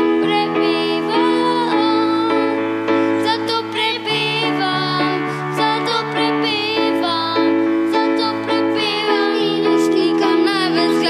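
Church hymn: voices sing over held chords from an accompanying instrument, and the chords change twice. The music is relayed into the church from singers in another building.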